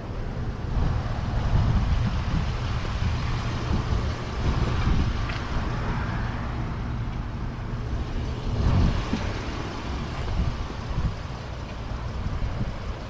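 A motor vehicle's engine running steadily, a low hum with uneven low rumble over it.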